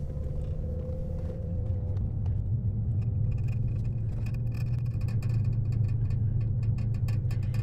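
Car driving slowly on a rough, cracked paved road, heard from inside the cabin: a steady low road-and-engine rumble. From a few seconds in, a scatter of light clicks joins it.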